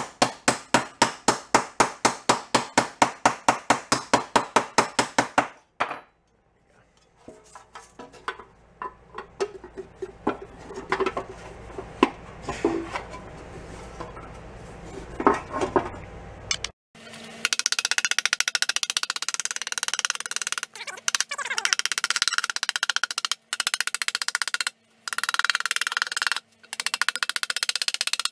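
Hammer tapping quickly on sheet steel, about five even taps a second, while it is shaped over a bench edge. The tapping then gives way to quieter knocks and handling of the parts. From about 17 s there is a dense run of fast hammer taps, broken by several sudden cuts, as the bent steel cover is tapped onto the air box so that it fits itself.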